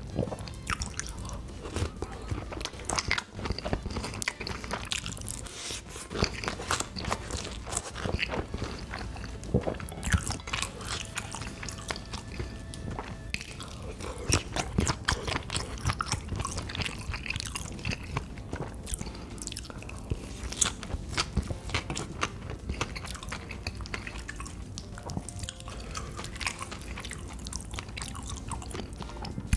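Close-miked eating: biting and chewing spicy sauced sausages and gimbap, with many short, irregular clicks of mouth and food.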